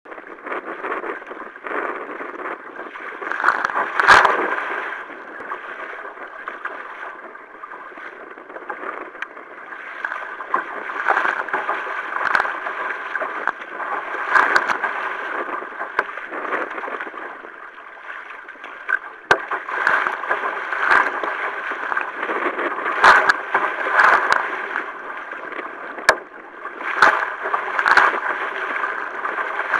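Sea kayak being paddled through choppy water: paddle blades splashing in and water slapping and gurgling against the hull, with sharp knocks every second or so, the loudest about four seconds in and again near the end.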